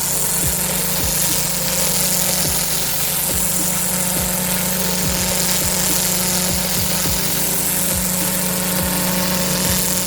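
Pressure washer's engine running steadily under load, with the high-pressure water jet hissing as it blasts lichen and grime off block paving.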